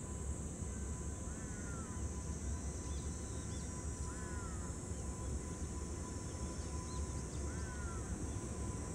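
JR Freight EH500 electric locomotive moving slowly, its inverter sound faint under a steady low rumble and a steady high hiss. A bird calls three times, about every three seconds; these calls are the clearest sounds.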